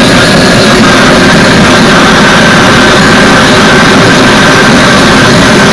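Gas forge burner running with a loud, steady roar and a faint steady high tone over it, as a blade heats for heat treatment.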